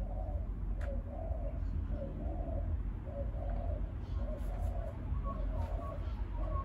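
A bird calling in a long, even series of low notes, about two a second, over a steady low rumble.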